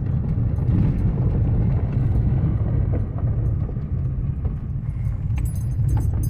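Car driving slowly on a gravel road, heard from inside the cabin: a steady low rumble of tyres and engine with gravel crunching under the wheels. A few sharp ticks come near the end.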